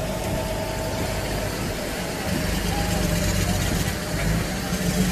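Steady low engine rumble of an idling motor vehicle, growing slightly louder about halfway through.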